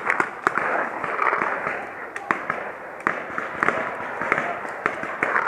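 Paintball markers firing in a game: an irregular string of sharp pops, several a second.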